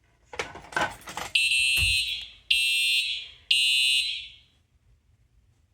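Simplex electronic fire alarm horns sounding three pulses, each about a second long, in close succession: a coded signal in which three pulses mark zone 3. A few clicks and knocks come just before the first pulse.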